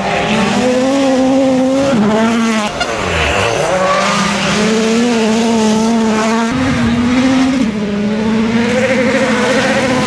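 2017 World Rally Cars' turbocharged 1.6-litre four-cylinder engines running hard on a gravel stage. The pitch holds steady and drops briefly a few times as the drivers change gear or lift.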